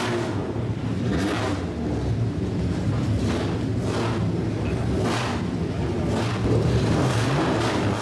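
Straight-piped exhaust of a lowered classic Japanese sedan rolling past at low speed. The engine runs with a steady low rumble, and short, sharp throttle blips recur roughly once a second.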